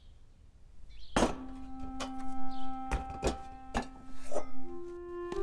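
Background music begins after a second of quiet: a sharp struck note about a second in opens a long held low note, with several more sharp struck notes over it and higher held notes coming in near the end.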